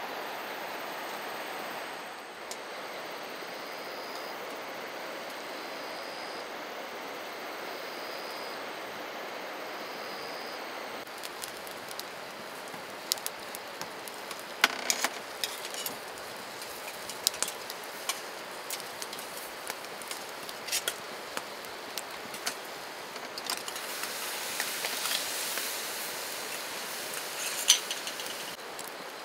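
Small clicks, taps and light clinks of hard objects being handled, coming thick and fast from about a third of the way in, over a steady hiss. In the first part a faint high chirp repeats about every two seconds.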